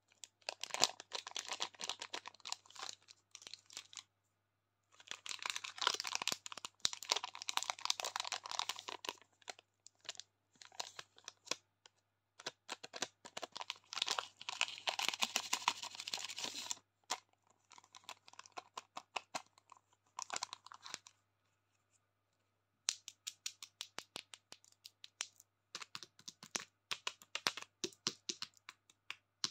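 Plastic candy wrappers crinkling and tearing in bursts of a few seconds as a wrapped chocolate bar and a wrapped candy are handled and opened. After a short pause near the end, quick light tapping and clicking of fingernails on the wrapped lollipops.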